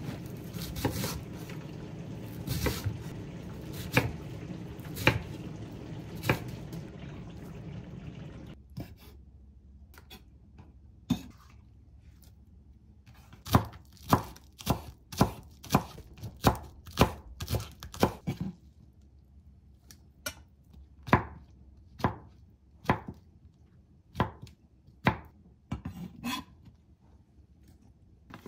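Chef's knife chopping cabbage and green onions on a wooden cutting board: separate knocks of the blade against the board, about one a second at first, then a quicker run of about two a second in the middle, spacing out again near the end. A steady hiss runs under the first eight seconds and then stops.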